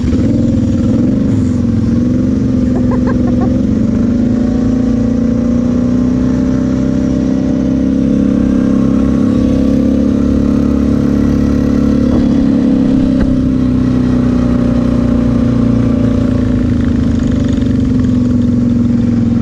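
Kawasaki KFX 700 V-Force quad's V-twin engine running steadily under way, its note rising a little midway and easing again.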